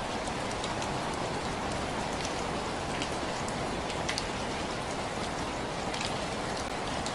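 Steady rain falling: an even hiss with individual drops ticking here and there.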